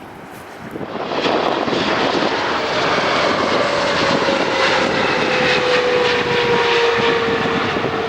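Boeing 777 jetliner passing close on approach: a loud roar of its engines builds suddenly about a second in, with a whine that slowly falls in pitch as the aircraft goes by.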